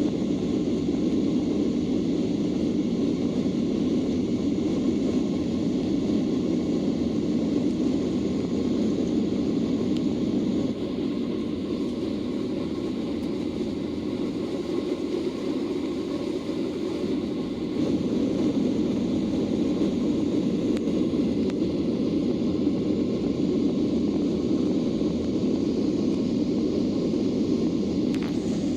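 Steady low rumble of a Boeing 737-800's CFM56 engines and rushing air, which drops a little in level for several seconds partway through.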